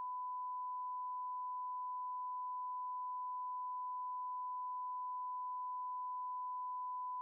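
A censor bleep: one long, steady, unbroken beep at a single pitch, laid over speech to bleep it out.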